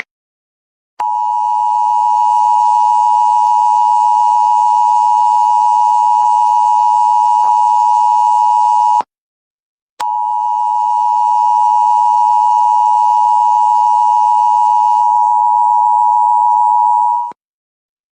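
Emergency Alert System attention signal: the steady two-tone alarm of 853 and 960 Hz sounds for about eight seconds, breaks off for a second, then sounds again for about seven seconds before cutting off. It announces that an emergency alert message follows.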